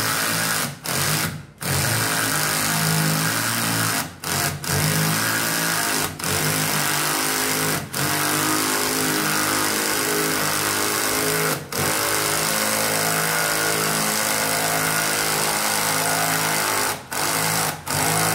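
Cordless drill-driver driving a long screw into a cabinet panel, the motor running in long pulls with several brief stops and restarts.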